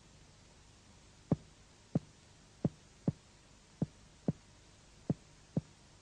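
Finger-on-finger chest percussion: eight short, dull taps in pairs, starting about a second in, as the doctor's finger strikes a finger laid on the chest wall. The taps map the borders of the vascular bundle in the second intercostal space.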